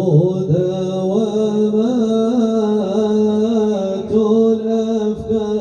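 Islamic devotional chant (madih) sung in Arabic: a voice sings slow, ornamented melodic lines that bend up and down over a steady held drone.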